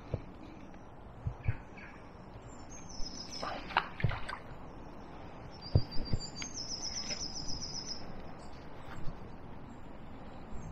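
A small songbird singing quick runs of high, repeated notes, three times. Underneath are a few low knocks and bumps from handling the fishing rod and reel, the loudest two close together about six seconds in.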